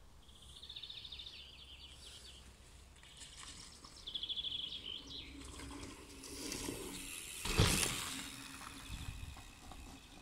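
Small songbird singing rapid high trills twice in the first half. From about five and a half seconds a rushing noise builds to one sharp loud burst near the end and then fades.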